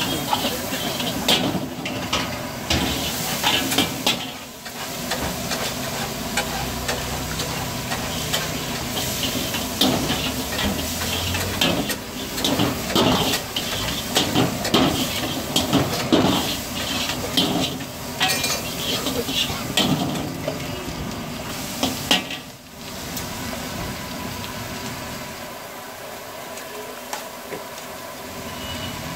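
A metal ladle scrapes and clanks against a wok as food is stir-fried over a high gas flame, over steady sizzling. The scraping stops about 23 seconds in, leaving only the sizzle.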